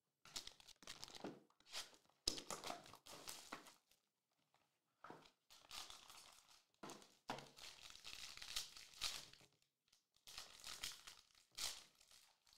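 Foil and plastic wrapping on a trading-card box and pack crinkling and tearing as they are opened by hand. It comes as quiet bursts of rustling with short pauses between.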